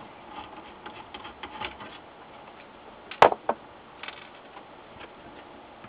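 Faint clicking and rattling of a hand screwdriver backing small Phillips screws out of a monitor's sheet-metal chassis, with two sharp clicks of small metal parts on the bench about three seconds in.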